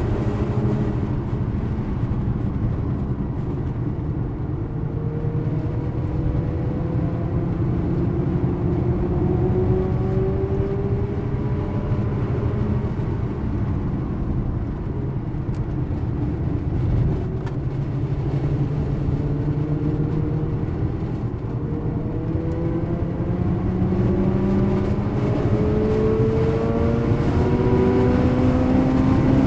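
Mazda RX-8's twin-rotor Wankel engine heard from inside the cabin under hard track driving: the engine note climbs in long rises and drops back several times as the car accelerates, shifts and lifts off, over steady road and tyre noise.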